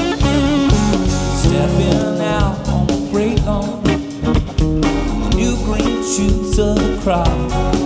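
Live folk-rock band playing the instrumental opening of a song, led by electric and acoustic guitars.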